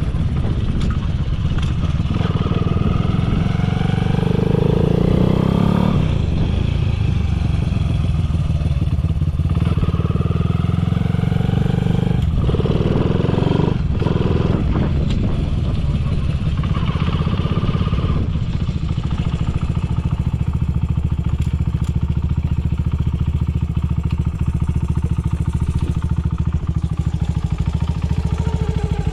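Honda Ape 50 with a swapped-in Ape 100 single-cylinder four-stroke engine and a Yoshimura titanium exhaust, idling steadily, its pitch rising and falling a few times in the first half. It runs with no abnormal noise.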